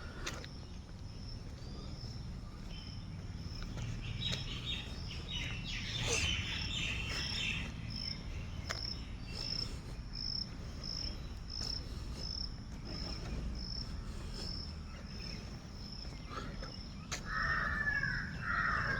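Outdoor nature ambience: an insect keeps up a high, steady, evenly pulsing trill, with bird chirps about four to eight seconds in and harsh crow caws near the end, over a low rumble.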